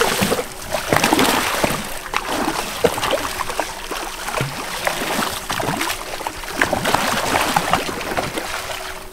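A school of jacks thrashing at the water's surface in a feeding frenzy, a continuous churn of splashing with sharper splashes scattered through it, easing off slightly near the end.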